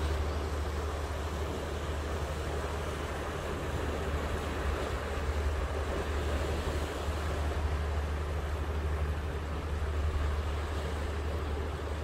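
Sea surf washing steadily over a rocky shore, with a low rumble of wind on the microphone underneath.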